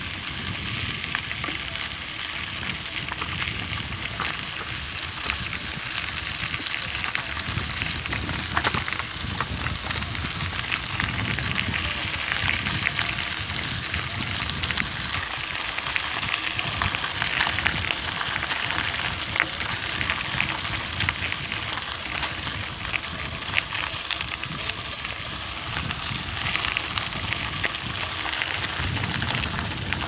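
Mountain bike tyres crackling and crunching over a loose gravel road while riding, a dense, steady patter of small clicks, with an uneven low rumble of wind on the microphone.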